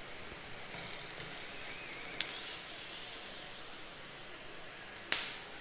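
Potato tikkis sizzling softly and steadily in shallow oil in a non-stick frying pan, with metal tongs giving a sharp click about two seconds in and a louder one near the end as the patties are lifted out.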